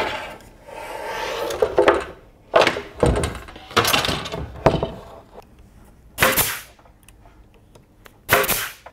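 Wooden jig being handled in the shop: a scraping slide of wood on wood, then several separate knocks and a deep thud, and two short hissy bursts near the end.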